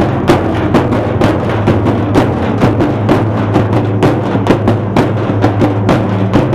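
A group of large double-headed drums beaten with sticks, playing a loud, fast, steady beat of sharp strokes.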